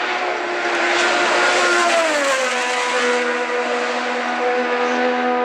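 600cc supersport racing motorcycle passing at racing speed: its high-revving engine builds in loudness, drops in pitch as it goes by about two seconds in, then holds a steady note.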